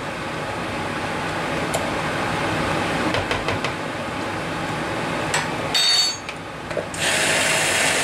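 A spoon scraping sour cream out of a plastic tub into a plastic jug, a steady scratchy rubbing over a constant background rush, with a few small clinks around six seconds in. Near the end a louder steady hiss comes in for about a second and a half.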